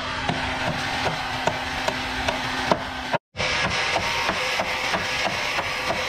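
Irregular knocking and clatter of wood being struck over a steady background noise of sawmill work, with an abrupt cut to silence about three seconds in.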